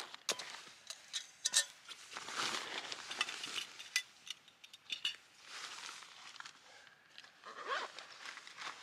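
Metal camping cookware and stove parts clinking and knocking irregularly as they are handled, with soft rustling of bags or packaging in between.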